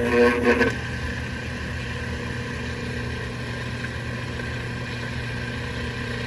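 Restored Atlas model 2502 half-horsepower 115-volt AC electric motor starting up and running. It is louder for under a second at the start, then settles into a steady hum with a higher whine over it.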